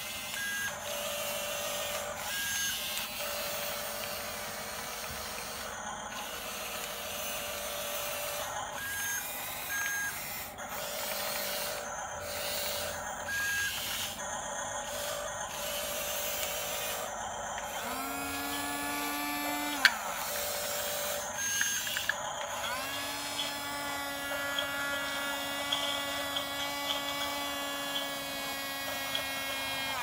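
Toy RC bulldozer's small electric motors whining as it drives on its tracks, with short repeating electronic beeps from its sound effects through the first half. About 18 seconds in a whine rises and ends in a sharp click, and from about 23 seconds a steady whine runs to the end.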